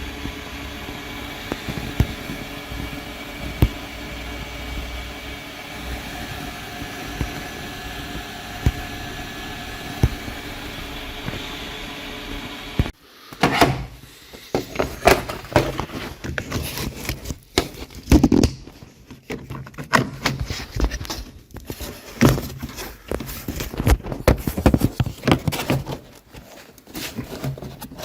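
A steady hum with a few sharp clicks. About halfway through it changes abruptly to irregular clicks, knocks and rubbing, the sound of objects being handled at close range.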